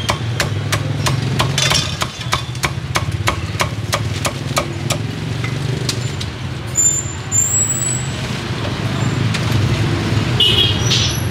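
Cleaver chopping roast pork on a chopping block: sharp even knocks about three a second, stopping about five seconds in. Under it runs a steady rumble of street traffic.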